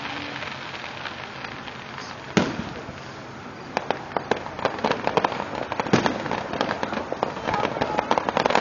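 Aerial fireworks: a single loud burst about two and a half seconds in, then from about four seconds on a dense crackle of many small sharp bangs, with another strong burst near six seconds.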